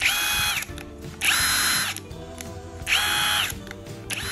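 Anchor DCW1 cordless brushless impact wrench free-spinning with no load, in three short trigger pulls. Each pull is a motor whine that spins up quickly, holds steady for about half a second and winds down. A quieter fourth pull comes near the end.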